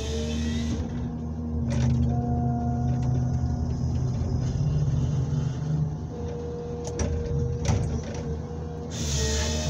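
Komatsu 901XC forestry harvester's diesel engine running under load with a steady hydraulic whine as the harvester head grips and swings a birch stem, the engine working harder from about two seconds in. A few sharp clicks and knocks from the head, and short hissing bursts at the start and again near the end.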